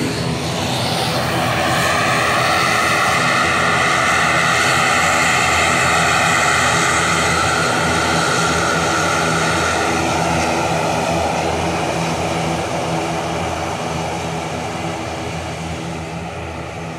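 Twin-turboprop airliner's engines running as it moves on the ground: a steady high whine over a low propeller drone. It is loudest in the first half and slowly fades as the aircraft moves away.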